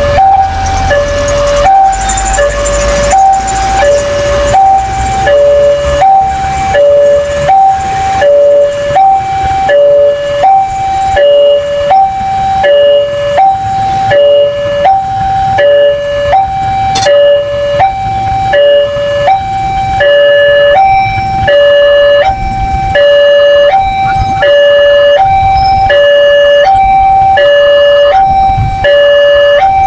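Railway level-crossing warning alarm sounding as the gates close: an electronic two-tone signal alternating evenly between a higher and a lower tone, over a low rumble that grows heavier in the last third.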